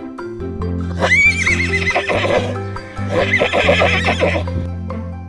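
A horse neighing twice, once about a second in and again about three seconds in, each a whinny with a wavering, trembling pitch. Children's background music plays under it.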